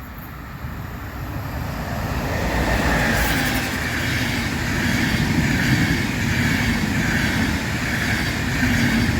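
A train passing on the line: its noise grows over the first few seconds as it comes closer, then stays loud and steady as the cars run past.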